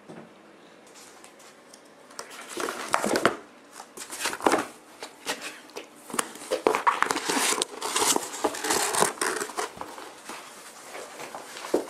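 Cat claws scratching and scrabbling at a cardboard box, the cardboard rustling and scraping in irregular bursts starting about two seconds in.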